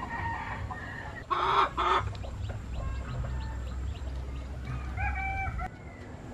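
Chickens calling: two loud short squawks about a second and a half in, scattered soft clucks, and a longer held call near the end.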